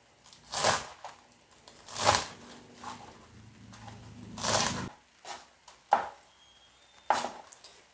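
Kitchen knife slicing through crisp pechay (bok choy) stalks onto a plastic cutting board: separate crunchy cuts spaced a second or more apart, the strongest about one, two and four and a half seconds in, with a sharp tap on the board about six seconds in.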